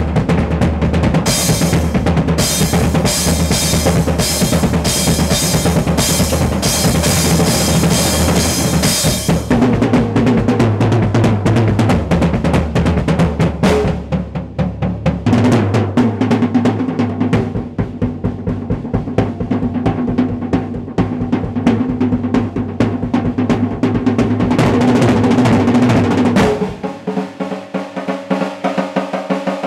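Acoustic drum kit solo: fast rolls of snare and toms over bass drum, with cymbals crashing through the first third. The cymbals then drop out and the rolls move around the toms, cymbals come back briefly, and near the end it turns quieter and higher, on snare and small toms without the bass drum.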